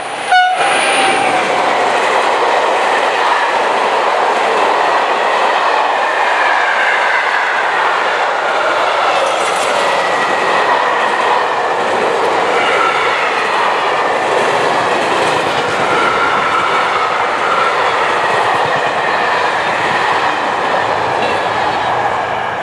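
Train passing close by, a loud, steady rush of wheels on rail with faint squealing tones drifting in pitch above it; it starts abruptly about half a second in.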